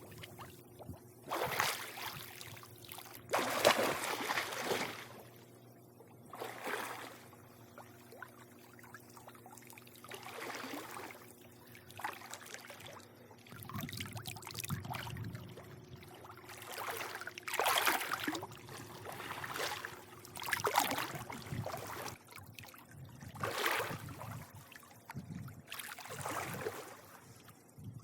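Swimming-pool water lapping and sloshing in irregular surges every two to three seconds, over a faint steady hum.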